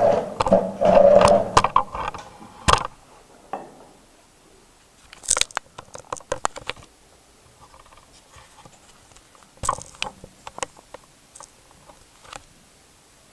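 Electronic noise music from a laptop set: harsh scraping and crackling with a buzzing tone, dense and loud for the first three seconds. Sparser clusters of sharp clicks and crackles follow twice, with near quiet between them.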